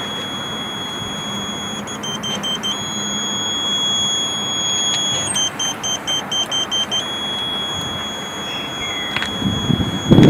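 Satellite antenna pointing buzzer sounding a steady high tone that twice breaks into rapid beeping, with small shifts in pitch, over a background hiss: the audible signal-strength guide used while aiming the Ka-band transceiver at the satellite.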